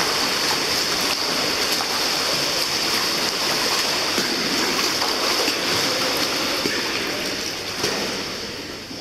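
Steady rushing water noise in a swimming pool, easing down over the last couple of seconds.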